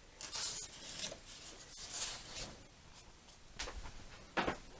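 Handling noises: soft rustling, then two short knocks near the end.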